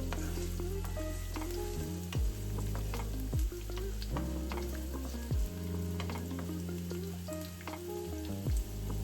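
Food frying in a hot pan, with a steady crackling sizzle throughout. Background music with deep bass notes runs underneath and slides sharply downward a few times.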